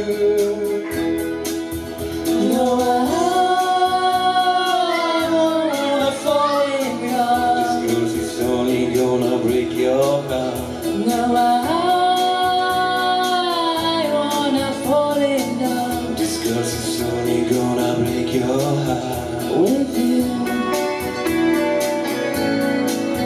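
Live ballad: a woman's voice sings long held notes with vibrato, sliding up into them, over electric keyboard accompaniment.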